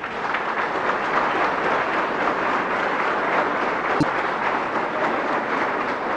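Large audience applauding steadily in a hall, with one sharp knock about four seconds in.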